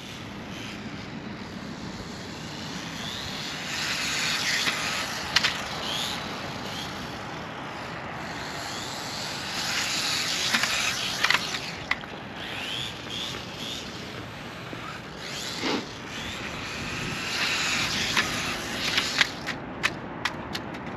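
WLtoys 1/28 scale micro RC buggy driving on concrete: its small electric motor whines up in three bursts of acceleration over the hiss of its tyres rolling, with sharp plastic clacks from jump landings and tumbles, several in a quick cluster near the end.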